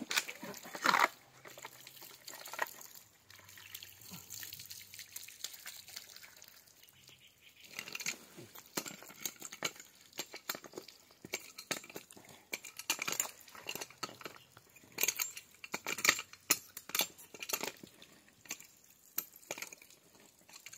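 Pipe wrench tightening the blue plastic compression nut on a polyethylene water-pipe fitting: a run of short, sharp clicks and scrapes, starting about a third of the way in, with water trickling.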